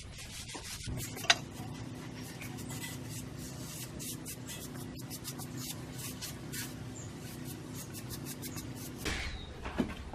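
Hand tool scraping and rubbing over a cement surface in many quick, short strokes, over a low steady hum, with one sharp tap about a second in.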